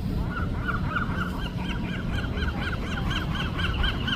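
A bird calling in a rapid run of short, evenly spaced squawks, about four to five a second, over a steady low rumble.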